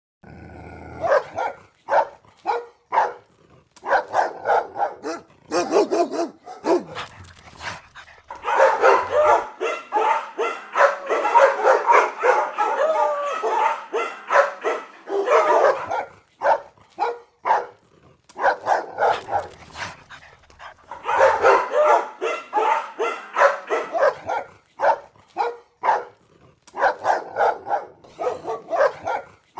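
Several angry dogs barking hard in quick, overlapping volleys, with thicker barrages around a third of the way in and again past two-thirds.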